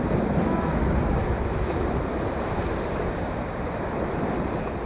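River water rushing steadily, with wind buffeting the microphone.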